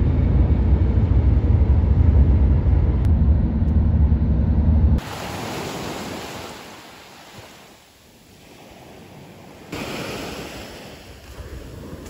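Low, steady rumble of a moving vehicle heard from inside, which cuts off abruptly about five seconds in. Sea waves washing onto a pebbly beach follow, swelling and fading, with some wind on the microphone, and they grow louder again near the end.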